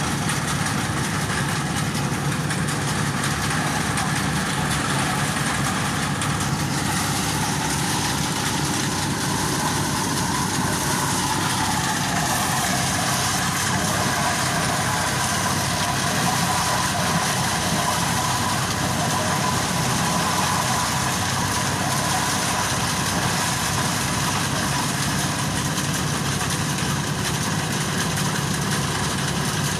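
Engine-driven corn thresher running steadily, a constant mechanical din with no let-up.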